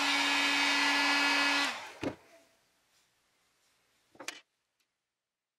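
Handheld heat gun running with a steady whine while shrinking heat-shrink tubing. It is switched off a little under two seconds in, and its fan winds down with a falling pitch. A short knock follows, and another about two seconds later.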